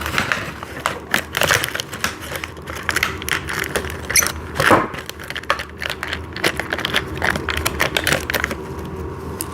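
Crinkling and rustling of plastic packaging mixed with scattered small clicks and taps from hardware being handled, easing off near the end.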